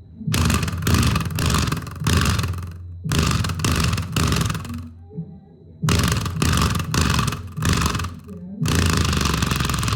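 The Tronica BT444 subwoofer plays a bass-heavy music track loudly on its own, with the satellite speakers disconnected, and a sheet of paper buzzes and rattles against it with each bass beat. The track drops out briefly a few times.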